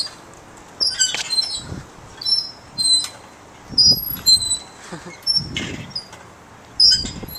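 Playground swing's metal chains and hangers squeaking, short high squeaks about once a second with each pass of the swing, alternating with wind rushing over the microphone as it swings.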